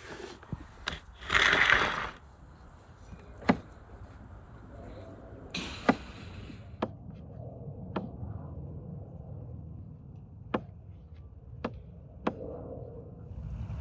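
Chef's knife chopping vegetables on a wooden cutting board: single sharp knocks of the blade on the board, spaced a second or more apart, with a short rustling scrape about a second and a half in.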